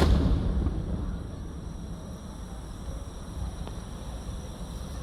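A firework shell bursting with a single loud boom right at the start, its low rumble rolling away over a second or so. After it, only a steady low background rumble.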